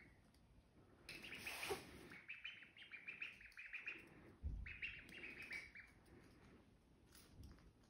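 Ducklings peeping: quick runs of high chirps in several bursts, with a soft low thump about four and a half seconds in.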